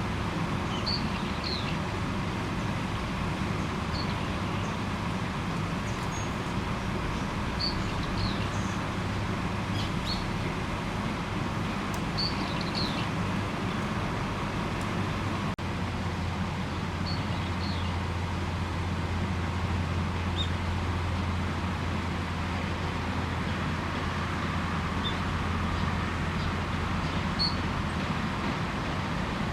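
Small birds chirping in short, high two-note calls every few seconds over a steady low hum of background noise, which changes pitch abruptly about halfway through.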